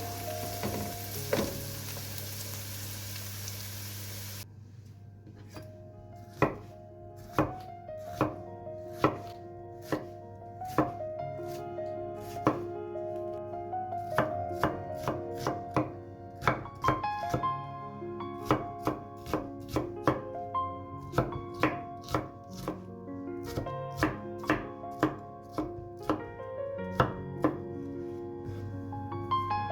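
Knife chopping food on a cutting board in sharp single strokes, about one a second at first, then quicker and less regular, over soft background music. A frying sizzle is heard at the start and cuts off abruptly about four seconds in.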